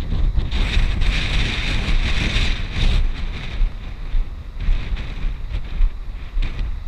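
Wind buffeting the microphone: a loud, irregular low rumble throughout, with a hiss that swells from about half a second in and fades after about three seconds.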